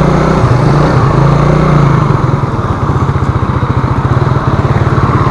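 Motorcycle engine running at low revs with an even, fast pulse as the bike moves off from a standstill and rolls slowly along.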